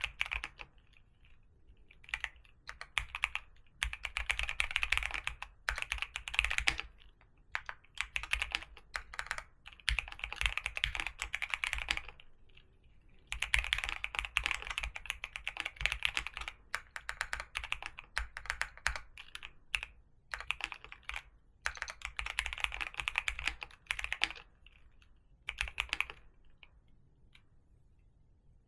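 Typing on a computer keyboard: runs of rapid keystrokes lasting a second or three, broken by short pauses.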